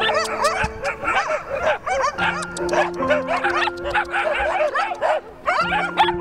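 Several dogs barking and yelping, many short barks overlapping in quick succession, over background music with long held notes. The barking stops near the end while the music carries on.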